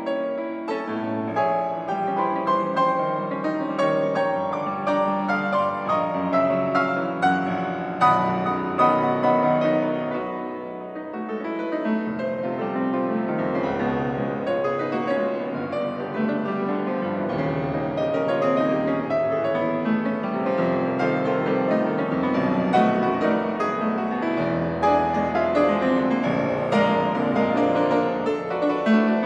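Grand piano played solo, a dense stream of notes across the range. It eases off briefly about ten seconds in, then builds again.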